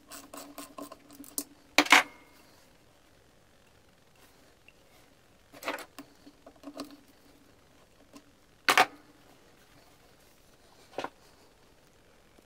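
Small metallic clicks from a screwdriver working the base-plate screw of a chrome-bodied jig saw, then a few sharp clacks of the metal saw and its base plate being handled, the loudest about two seconds in and about nine seconds in.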